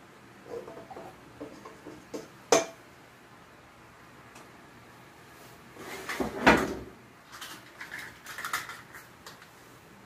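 Kitchen utensils and bowls being handled on a counter: scattered light clicks and clatters, with one louder knock about six and a half seconds in.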